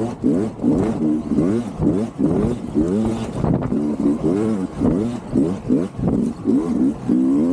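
2024 Sherco 300 SE-R Factory two-stroke dirt bike engine revving up and dropping back over and over, about two rises a second, as the throttle is worked on and off over sandy, bumpy ground.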